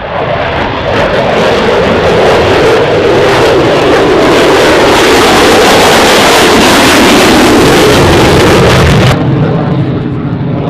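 Loud jet aircraft roar building over the first couple of seconds, holding, then dropping off sharply about nine seconds in.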